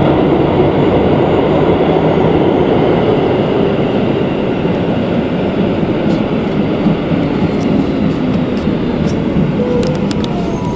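Keikyu 1500 series electric train running through an underground station, heard from inside the front car: a steady rumble of wheels on rail that slowly eases as the train slows at the platform, with a few faint ticks and a brief thin squeal near the end.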